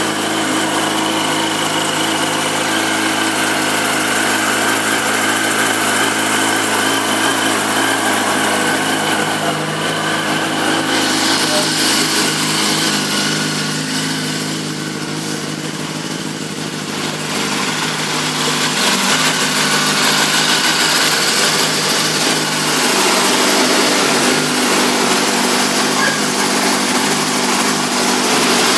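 2005 Yamaha YZF-R1's inline four-cylinder engine idling steadily on its stock exhaust.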